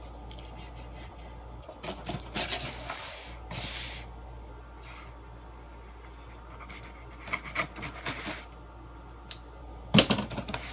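Scissors slitting packing tape on a cardboard shipping box: scattered scraping and rubbing strokes in short clusters, with one louder sharp knock near the end.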